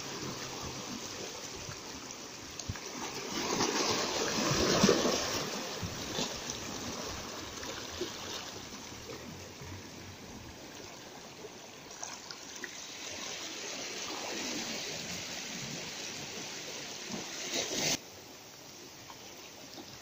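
Seawater washing and lapping around rocks at the shoreline, with a louder surge of water over them about four seconds in. The wash drops to a fainter level near the end.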